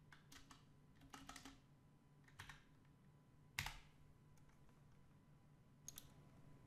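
Faint typing on a computer keyboard: a few short runs of keystrokes, with one louder click about halfway through.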